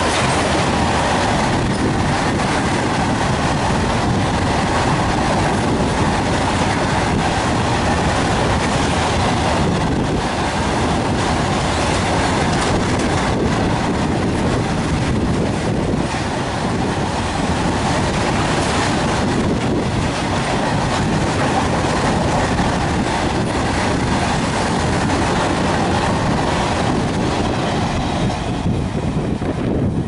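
A freight train of open box wagons rolling past at speed: a loud, steady noise of steel wheels running on the rails. It thins out and drops near the end as the last wagons and the brake van go by.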